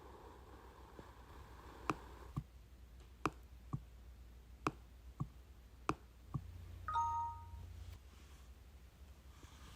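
Eight sharp taps falling in rough pairs, then a single bright chime-like ding that rings briefly with several tones.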